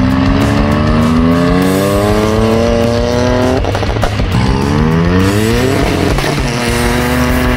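Turbocharged Toyota Aygo accelerating hard through the gears. The engine climbs in pitch, drops at an upshift about three and a half seconds in with a short burst of pops, then climbs again to another shift near six seconds.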